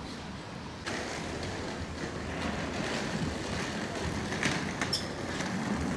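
Busy city street noise with passing road traffic: a steady noisy hum that steps up sharply in level about a second in, with a few light clicks later on.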